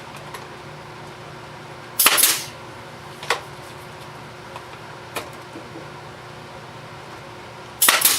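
Brad nailer firing twice, about six seconds apart, each shot a sharp crack as it drives a brad into the wooden joints. A few lighter knocks of handling come in between.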